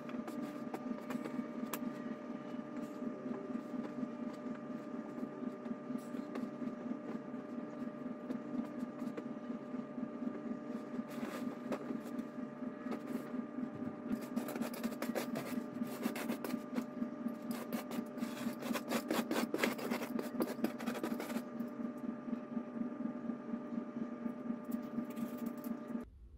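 Ceiling fan running with a steady hum and a fast, regular pulse, while cloth towels rustle and rub as they are handled and folded, most in the middle stretch.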